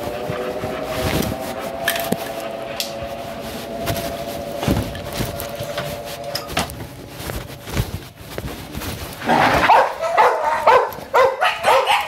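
A dog barking in a quick run of loud barks, starting about nine seconds in. Before that, a steady whining tone holds for the first six seconds or so.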